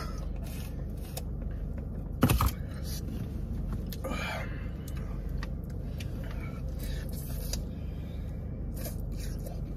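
Steady low hum inside a parked car, with one sharp knock about two seconds in and a brief soft rustle around four seconds.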